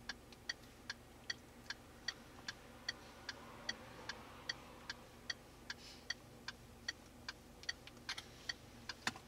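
Car turn-signal flasher clicking at an even pace, about two and a half clicks a second, over the faint hum of the moving car.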